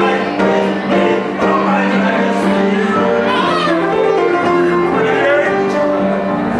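Live band performing a song, with a voice singing over the instruments and a steady low held note underneath.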